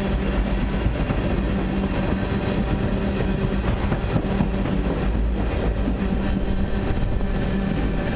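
Tank cars of a long freight train rolling past, steel wheels on the rails making a steady rumble with a constant low hum.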